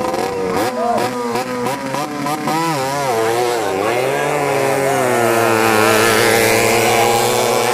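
Engines of two small racing speedboats under full throttle. Their pitch wavers and dips at first, then climbs about four seconds in and holds high and steady.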